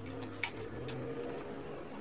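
A dove cooing low and drawn-out, with a light click from the plastic router being handled about half a second in.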